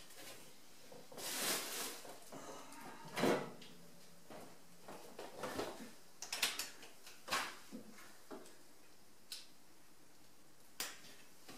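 Handling noise as a PCP air rifle is picked up and set onto a padded shooting bag: scattered knocks, clicks and a brief rustle. The loudest knock comes about three seconds in.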